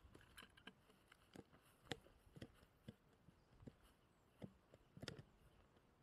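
Faint, irregular crunches and knocks: footsteps in dry leaves and wood chips and a cant hook working against a log as it is levered over.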